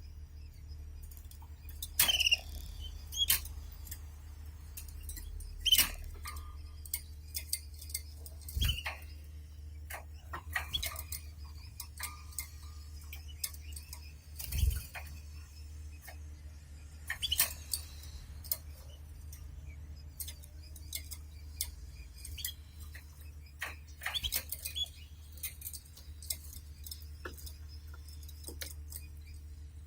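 Canaries in their cage giving short, scattered chirps and call notes among light clicks and taps from hopping, pecking and nest-shifting. A steady low hum runs underneath.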